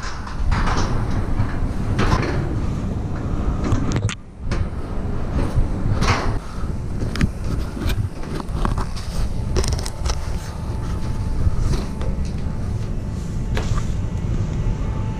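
Footsteps and irregular knocks of people climbing stairs, over a steady rumble and rustle from a body-worn camera jostled by the climber's movement.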